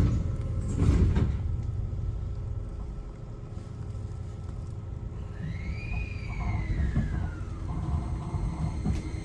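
Inside a Keio 5000 series commuter train: a steady low rumble, a sharp knock about a second in, and a whistling tone that rises and then falls over a few seconds midway.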